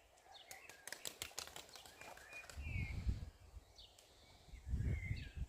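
Small birds chirping in short calls, with a quick run of sharp clicks about a second in and low gusts of wind buffeting the microphone twice.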